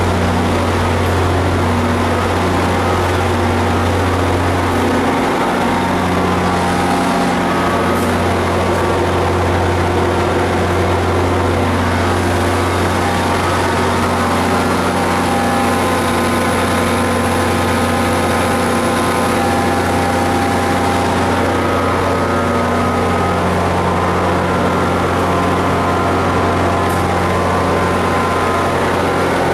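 NJ Transit diesel locomotive idling: a loud, steady low engine hum with several steady higher tones over it.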